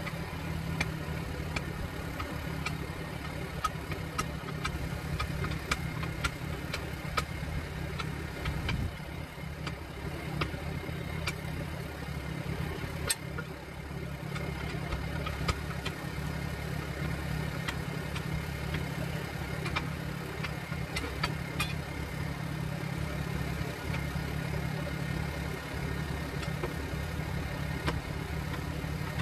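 A steady engine hum, as of an engine idling, with scattered sharp metallic clicks and clinks of steel tire irons against the wheel rim as the bead of a large backhoe tire is pried off by hand.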